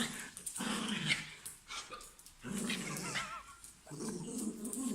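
Dog growling in about four rough bouts, each broken off by a short pause, worked up while on its leash.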